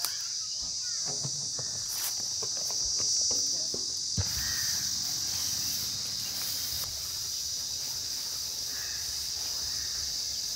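Steady high chirring of insects, with soft rustles and light taps of a hand pushing and scooping through a heap of corn flour.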